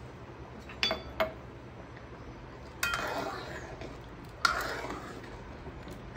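A metal ladle clinks twice against a metal kadai, then stirs spice powder into simmering kulambu, scraping and sloshing through the liquid in two strokes of about a second each, the second starting with a knock on the pan.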